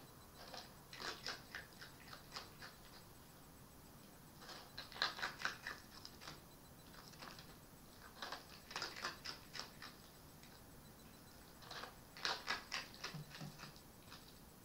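Red fox eating from a bowl: four runs of rapid crunching clicks, each lasting a second or two, with short pauses between them.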